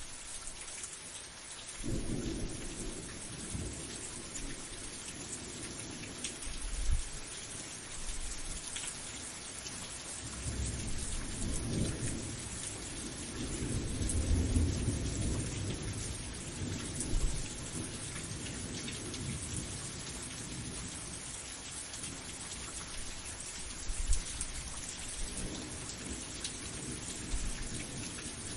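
Steady heavy rain hissing, with low rolls of thunder. The thunder begins about two seconds in, is loudest from about ten to sixteen seconds in, and comes again near the end.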